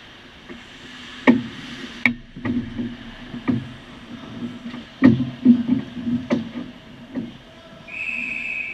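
Ice hockey scramble at the goal: a run of sharp knocks and clacks from sticks, puck and skates hitting around the goal cage, the loudest a little over a second in and about five seconds in. Near the end a referee's whistle starts, a steady shrill tone held to stop play as the goalie covers the puck.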